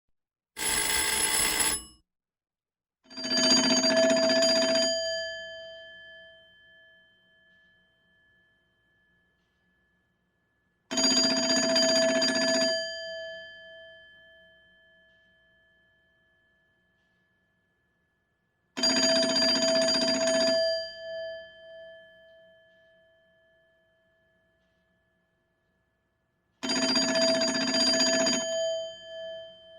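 Old telephone's electromechanical bell ringing once, four times over: each ring is about two seconds of rapid clapper ringing that fades away with a lingering bell tone, the rings about eight seconds apart. Just after the start comes a shorter, brighter burst.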